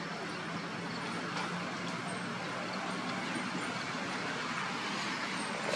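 Steady outdoor background noise: an even hiss with a faint low hum underneath and no distinct events.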